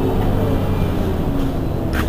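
Heuliez GX 127 city bus's diesel engine idling steadily while the bus stands still, with a short sharp click near the end.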